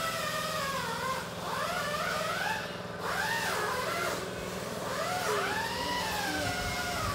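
A young child making a wordless vocal noise, the pitch sliding up and down in long wavy runs with short breaks, over a steady low hum.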